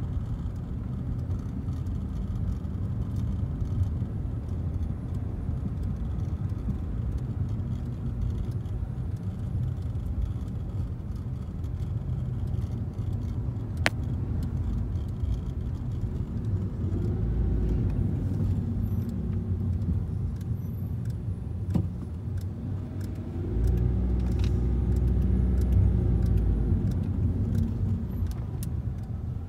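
Car cabin noise while driving: a steady low rumble of engine and tyres, growing louder for a few seconds near the end, with a single sharp click about halfway through.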